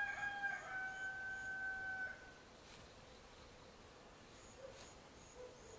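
A rooster crowing once: a drawn-out call held for about two seconds, stepping down a little in pitch before it ends. Faint, evenly repeated high chirps come in near the end.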